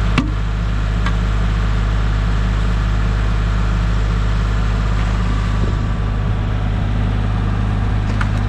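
Kubota L3301 tractor's diesel engine running steadily, a low even drone, with a faint click or two near the start.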